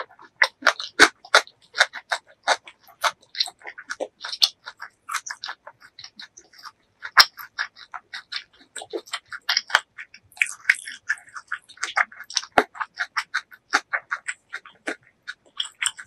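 Close-miked chewing with the mouth closed: rapid, irregular wet smacks and clicks, several a second, with a few sharper louder clicks.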